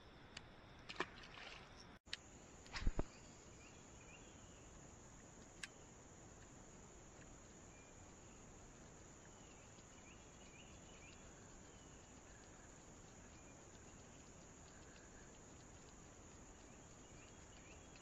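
Near silence: faint steady outdoor hiss with faint insect chirping now and then. A few short knocks sound in the first three seconds, the loudest about three seconds in, and a single faint click follows a few seconds later.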